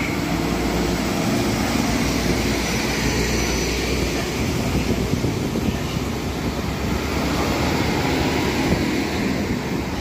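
PESA SA132 diesel railcar running at a standstill: a steady low engine rumble and hum.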